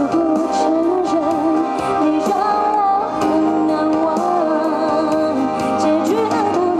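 Live pop music from a band over stadium loudspeakers: a wavering melody line over steady sustained chords.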